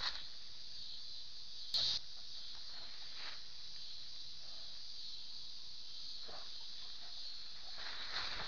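Steady high-pitched chirring of insects in tall grass. A short rustle of grass against the dog's chest-mounted camera comes about two seconds in, and a few faint rustles follow.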